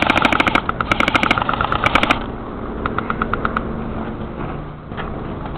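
Airsoft guns firing rapid full-auto bursts, a fast even string of sharp ticks for about the first two seconds. After that, only a few fainter scattered shots.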